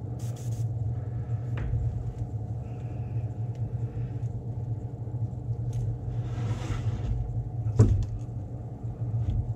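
Steady low hum of a spray-booth air filter fan running. Light handling clicks, a brief faint hiss just before seven seconds, and a sharper click about eight seconds in as the lure's holder is clipped onto a metal stand.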